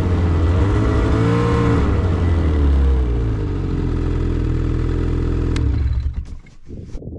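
Snowmobile engine running at speed along a snow trail, its pitch wavering, easing off about three seconds in. About six seconds in the engine sound drops away, leaving low, uneven rumbling.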